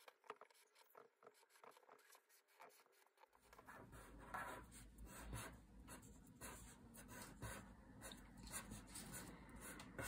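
Faint scratching of a felt-tip marker on paper as letters are written by hand, in many short strokes.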